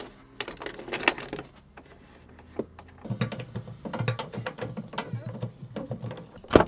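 Campervan rear seat base being worked by hand on its metal floor rails: scattered metal clicks, then a low rattling scrape for about three seconds, and one sharp clunk just before the end.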